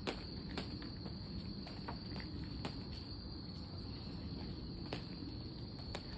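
Night insects trilling on one steady high note throughout, with a few soft footsteps.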